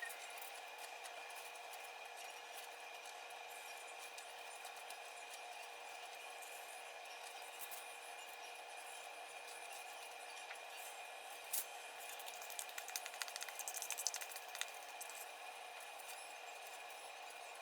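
Quiet kitchen room tone with a faint steady hum. Just past the middle comes a single knock, followed by a few seconds of light clicking and clinking of kitchenware.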